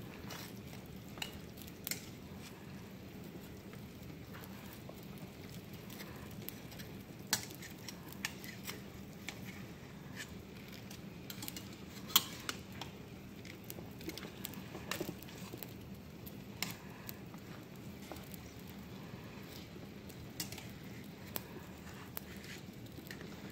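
Metal tongs clinking and scraping against a metal pot at irregular intervals while ribs are turned in liquid at a rolling boil, over a steady low bubbling of the boil.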